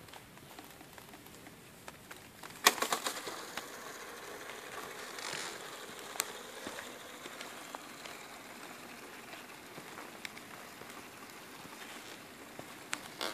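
A rubber-band-powered indoor model plane's propeller whirring softly as the spent plane sits on a gym floor. There is a short cluster of clattering knocks about three seconds in, and a single sharp click a little later.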